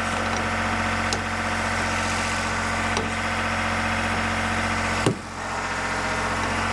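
An engine running steadily at an even speed, with a few light metal clicks and a sharper knock about five seconds in, after which the drone dips briefly and comes back.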